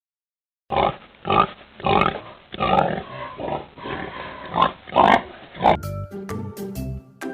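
Pig grunting: an irregular series of grunts starting just under a second in and lasting about five seconds. Light children's music returns near the end.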